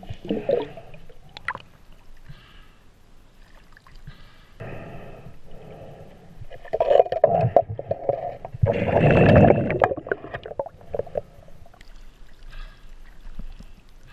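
Water gurgling and sloshing around a camera held underwater. There are louder bursts about five, seven and nine seconds in, the one near nine seconds the loudest.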